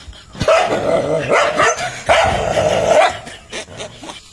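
A dog barking at its own reflection in a mirror: three loud, drawn-out barks in the first three seconds, then a few weaker sounds that fade near the end.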